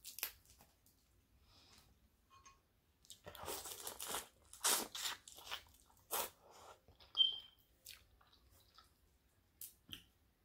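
A person eating seafood boil: chewing and crunching with sharp cracks and clicks, coming in clusters, busiest about three to six seconds in, with a few more near the end.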